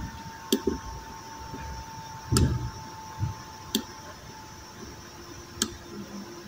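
Computer mouse clicking a few times: single sharp clicks spaced a second or two apart. A faint steady tone sits behind them and stops about four seconds in.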